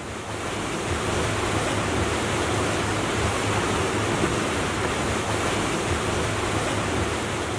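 Steady rushing noise of wind and river water, with a low hum underneath; it rises in over the first second.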